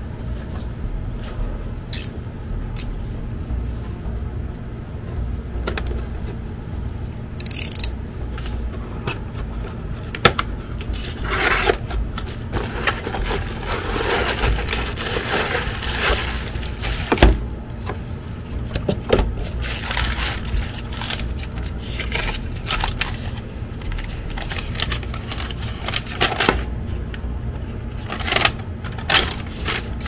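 Cardboard box and plastic packaging being handled as a travel hair dryer is unpacked: scattered scrapes, clicks and rustling, busiest in the middle, over a steady low hum.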